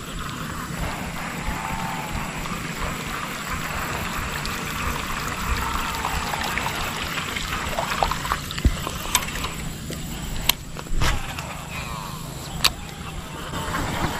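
Steady trickling and sloshing of water, with a few sharp clicks in the second half.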